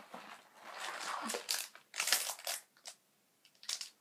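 Crinkly plastic candy wrappers rustling and crackling as they are handled, for about two and a half seconds, then a short crinkle near the end.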